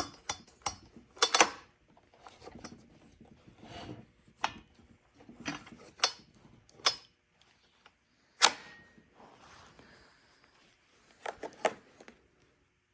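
Scattered clicks, knocks and short scraping sounds from a Husqvarna 455 Rancher chainsaw being handled while not running, with several sharper knocks spread through it.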